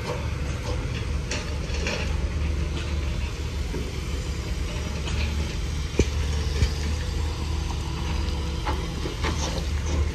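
Heavy construction machinery running: a steady low diesel rumble, with scattered metallic clanks and clicks.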